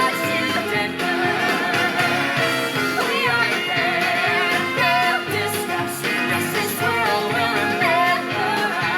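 A musical-theatre song recording playing: singing voices over a band accompaniment.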